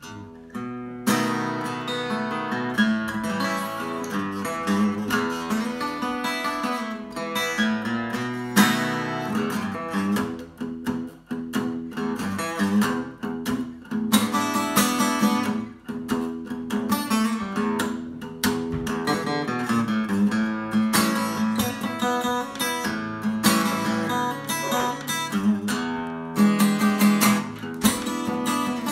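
Solo blues played on a Takamine acoustic guitar, single-note picking mixed with sharp strummed chords. The playing starts up again about a second in after a brief gap.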